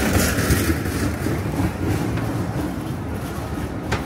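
Outdoor street ambience: a steady low rumble of passing traffic under a broad hiss, with one sharp click near the end.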